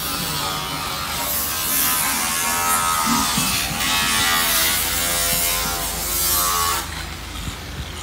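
A small motor-driven power tool buzzing with a hiss, its pitch wavering slightly. It cuts off abruptly about seven seconds in.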